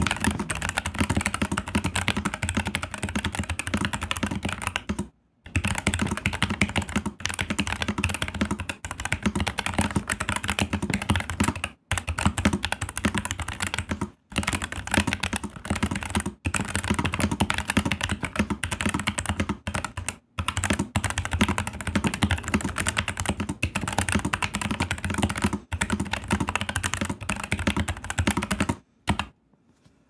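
Fast touch-typing on a Nuphy Air 75 V2 low-profile mechanical keyboard with brown tactile switches: a rapid, continuous clatter of keystrokes at about nine keys a second, broken by a few brief pauses, stopping about a second before the end.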